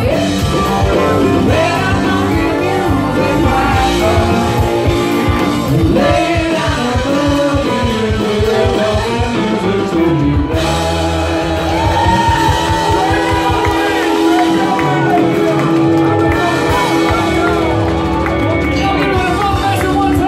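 Live blues-rock band playing: electric guitar, electric bass and drums, with a lead voice singing over them.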